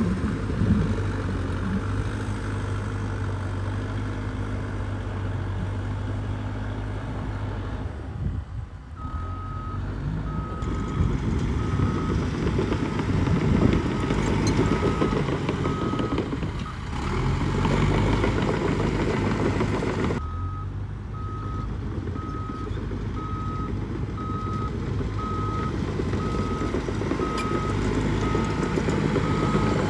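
Diesel engine of heavy earthmoving machinery running steadily, with a back-up alarm beeping about once a second from around nine seconds in until about sixteen seconds, then starting again about twenty seconds in.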